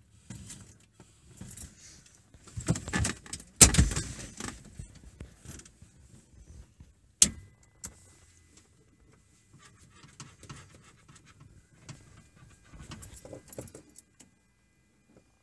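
Keys jangling and handling knocks in a Cessna 172 cockpit while the engine is still off. There is a loud thump about three and a half seconds in and a sharp click about seven seconds in, after which a faint steady high tone sounds.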